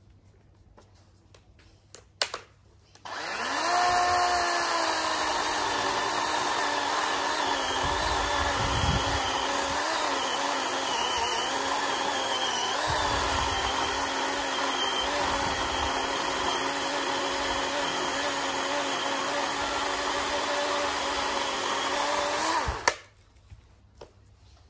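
A DeWalt DCM565 18V brushless cordless chainsaw with a 12-inch bar cutting through a log: a click, then the motor starts abruptly about three seconds in, dips briefly in pitch soon after starting, runs steadily under load for about twenty seconds and stops suddenly.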